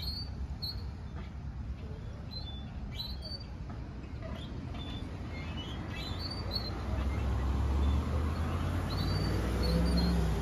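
Metal swing set squeaking in short, high chirps as the swing goes back and forth: its dry chain hangers need grease. A low rumble builds in the background about two-thirds of the way through.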